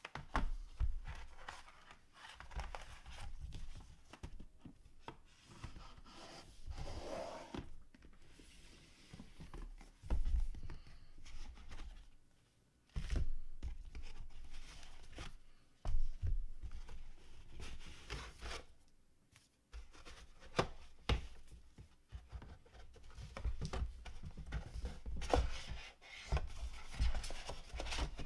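Hands rummaging through a drawered box set: rubbing and scraping against its panels, with irregular clicks, knocks and dull bumps as drawers and trays are handled.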